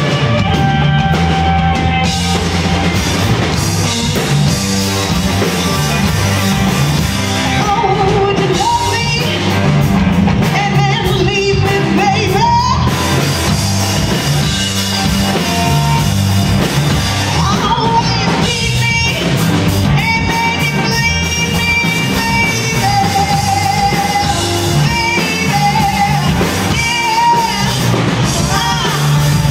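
Live rock band playing loud: a woman singing lead over electric guitar and a drum kit.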